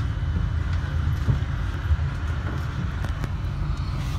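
Tram rolling along its track, heard from inside the rear of the car: a steady low rumble with a few faint clicks.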